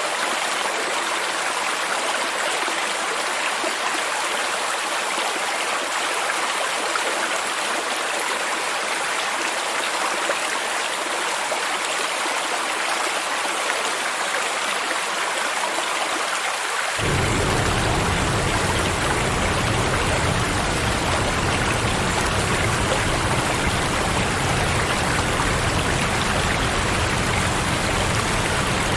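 Steady rushing water of a stream and waterfall, an even noise without breaks. A little past halfway a deep low rumble cuts in abruptly and the sound grows slightly fuller and louder.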